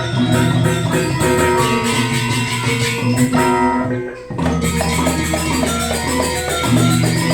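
Balinese gamelan ensemble playing: pitched metallophone strokes in busy patterns over sustained low gong tones. The music thins briefly about four seconds in, then comes back in full.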